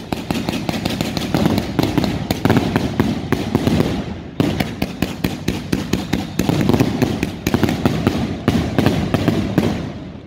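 A 300-shot Thunder King firework cake firing in quick succession: a dense run of sharp launch shots, several a second, with a brief lull about four seconds in.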